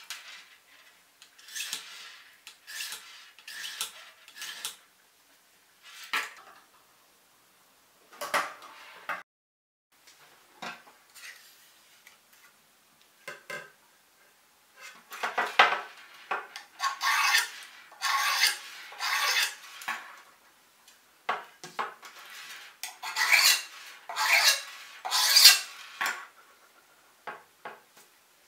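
Handheld tungsten-alloy pocket sharpener drawn along the steel blade of hedge shears: short metal-on-metal scraping strokes in irregular runs with pauses between, coming fastest and loudest in the second half.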